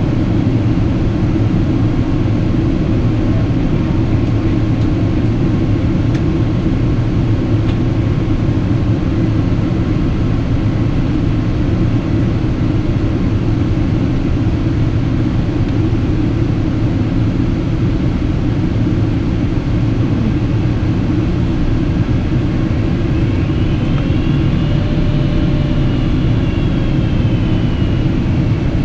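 Steady cabin roar of a Boeing 777-200 airliner in descent: airflow and engine noise heard inside the passenger cabin. Late on, a faint high whine rises and then falls away.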